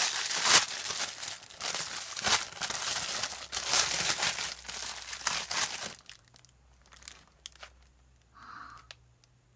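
Plastic packaging crinkling and tearing as a squishy toy is unwrapped, dense and continuous for about six seconds, then stopping, leaving only a few faint clicks.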